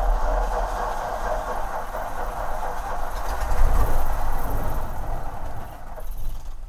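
Starter cranking the Cessna L-19 Bird Dog's Continental O-470 six-cylinder engine, turning the propeller over for about six seconds without the engine catching, then stopping abruptly.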